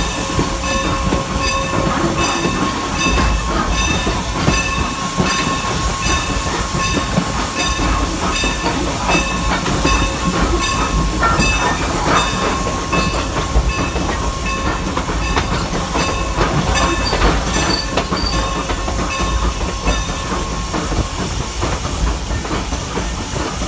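Norfolk & Western 4-8-0 steam locomotive No. 475 running, heard from its front end: a steady rumble and hiss, with a regular ringing about twice a second.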